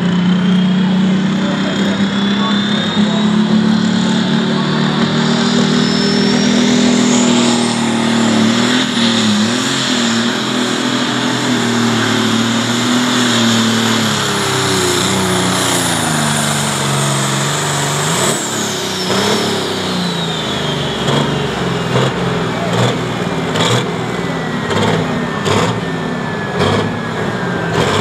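A John Deere pro stock pulling tractor's turbocharged diesel engine runs at full load dragging a pull sled. Its turbo whistle climbs steadily to a high scream over the first eight seconds, holds, and falls away after about eighteen seconds as the engine comes off power. The engine note dips and recovers under the load partway through, and a few sharp knocks come near the end.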